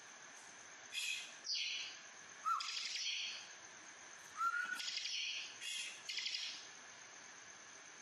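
A caged bar-winged prinia (ciblek kristal) sings the fast, buzzy rattling song that bird keepers call "ngebrem". It comes in four short bouts of about a second each, with a couple of short rising notes between them.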